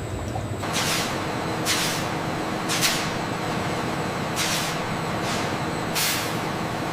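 Factory machinery running steadily with a faint hum. Over it come five short hisses, like air being let off, about a second or so apart.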